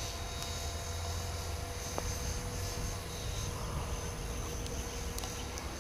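Align T-Rex 450 Pro electric RC helicopter in flight, its motor and rotor giving a steady whine and hum.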